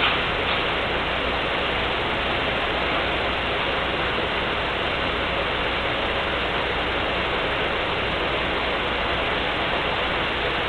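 Steady, even background hiss with no change in level, and a light click or two at the very start.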